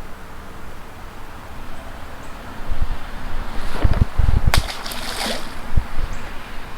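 A largemouth bass being let go into creek water: a loud splash and sloshing about four seconds in, over a steady rush of wind and water.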